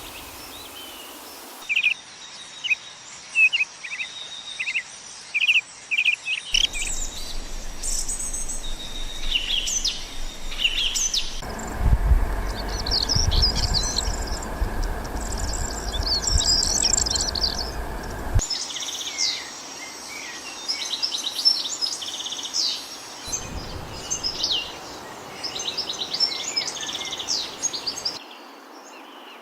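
Songbirds chirping and singing, several at once, in quick high chirps and short trills. The background changes abruptly a few times, as between cut-together recordings, and a low rumble runs under the birds through the middle stretch.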